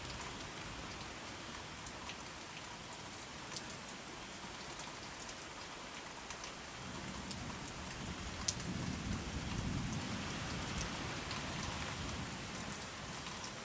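Steady rain falling, with scattered sharp ticks of drops hitting close by. About seven seconds in, a low rumble of distant thunder swells for several seconds, then fades.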